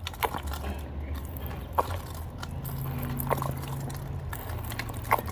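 CuloClean portable bidet nozzle on a plastic water bottle, squeezed by hand to fire several short squirts of water that spatter onto a hand.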